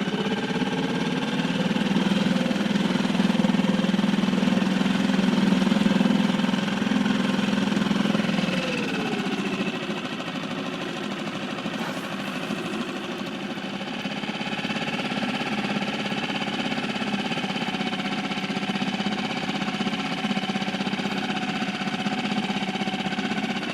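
Seatan outboard motor running steadily under way; about eight seconds in the revs ease off, its pitch falls and it gets quieter, then it runs on steadily at the lower revs.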